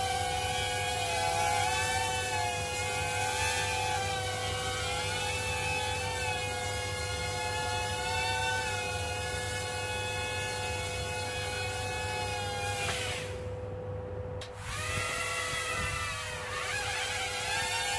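XK X100 quadcopter's motors and propellers whining in flight, the pitch wavering up and down as the throttle changes. About 13 seconds in the whine drops away, then starts up again a second and a half later and rises back in pitch.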